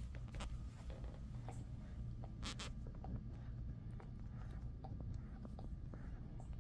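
Jindo dog gnawing and chewing a treat held between its paws: scattered small clicks and scratchy crunches, with a sharp double click about two and a half seconds in, over a steady low hum.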